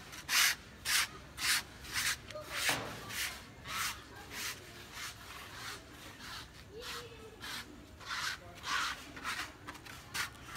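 Footsteps scuffing on a gritty concrete surface, about two steps a second, fading a little mid-way and growing stronger again near the end.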